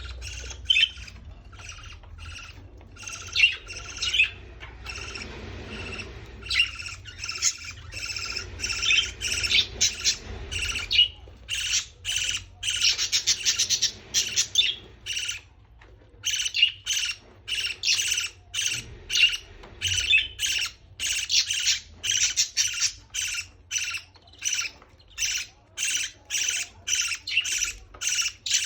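Baby parrot begging calls during feeding: a long run of short, high calls repeated over and over, packed together in the middle and then settling into an even pulse of about two calls a second.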